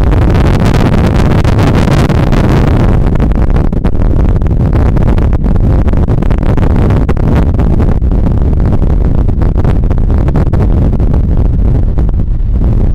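Storm wind buffeting the camera microphone in a loud, steady rumble, over the wash of heavy breaking surf, which is fuller in the first few seconds.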